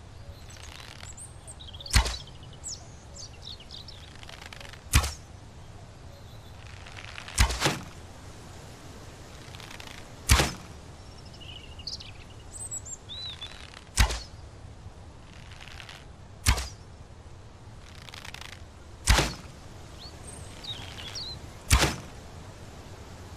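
Bow and arrow being shot over and over: eight sharp thwacks a few seconds apart, each sudden and brief. Birds chirp faintly between the shots.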